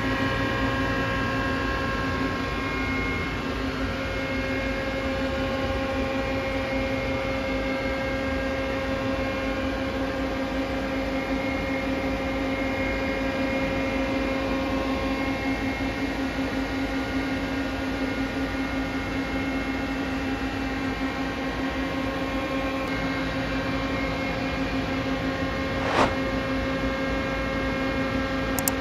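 Steady hum of a powered-up, idling Mori Seiki CL-200B CNC turning-center lathe, several steady tones over a low rumble with nothing cutting. A single sharp click comes near the end.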